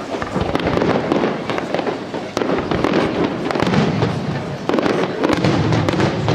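Fireworks display going off in a dense barrage: many bangs and crackles a second, overlapping without a pause.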